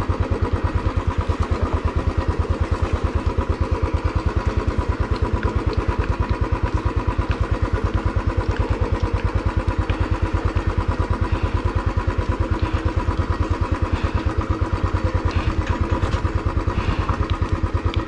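Royal Enfield Classic 350's single-cylinder four-stroke engine running with a steady, even beat that holds the same pace throughout.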